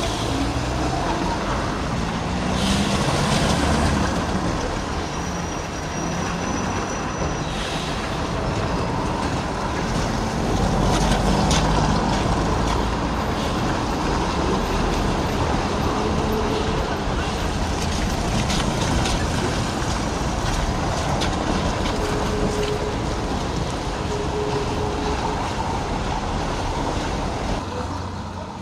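Lisbon two-axle electric tram running along curving street track, a steady rumble of wheels on rail with a brief high squeal about six seconds in, amid car traffic on a wet street.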